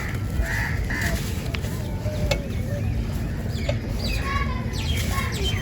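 Crispy, dry crumbly material in a pot breaking apart in scattered sharp crackles, over a steady low rumble, with birds calling in the background.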